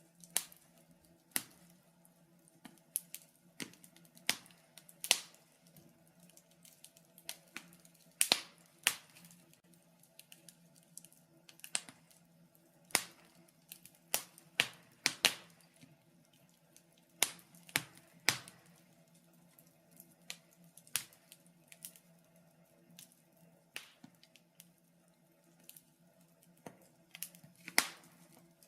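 Wood fire crackling: irregular sharp pops and snaps, a few every couple of seconds, over a faint steady low hum.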